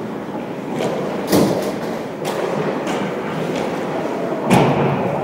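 Two sharp thuds about three seconds apart, with lighter knocks between, over a steady background of game noise in a large hall.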